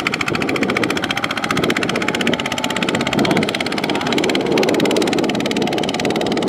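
Two-wheel walking tractor's single-cylinder diesel engine running steadily with a fast, even knocking beat, pulling a trailer loaded with sacks of rice.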